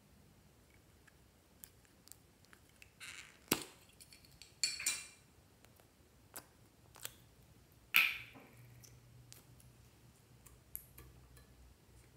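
Scattered clicks and taps of plastic slime containers being opened and handled over glass trays, with a couple of short scraping bursts and one sharper knock about eight seconds in that rings briefly.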